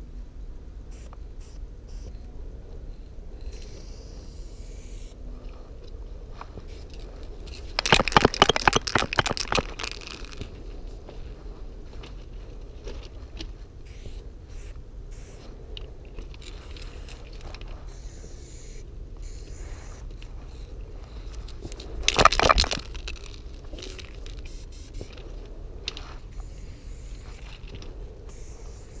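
Aerosol spray paint cans hissing in short spurts against a train's metal side, with two louder bursts of rustling noise, a longer one about a third of the way in and a shorter one about three-quarters of the way in.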